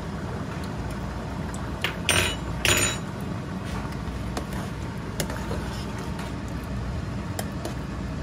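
A metal spoon stirring thick chickpea curry in a pot, with two loud scrapes against the pot about two seconds in, then a few light clicks of the spoon on the pot. A steady low hum lies beneath.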